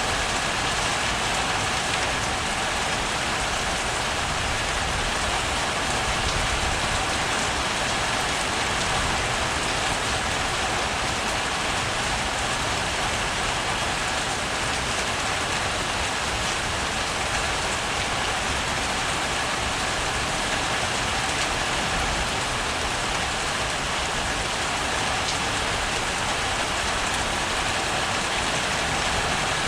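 Rain falling steadily during a thunderstorm, an even, unbroken hiss of rain on surfaces with no thunderclap standing out.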